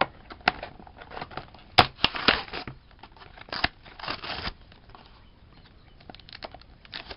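Clear plastic blister packaging being pried and pulled open by hand, crackling and crinkling with scattered sharp clicks. The loudest crackles come about two seconds in, and the handling quietens near the end.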